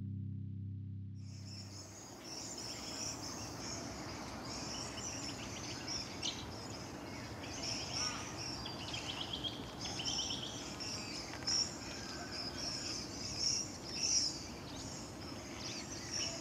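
Outdoor ambience of insects chirring steadily in a high pitch, with scattered short bird chirps. A held low music chord ends within the first two seconds.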